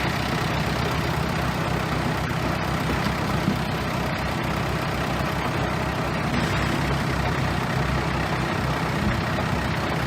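Bulldozer's diesel engine running steadily under load, a constant low drone with no breaks.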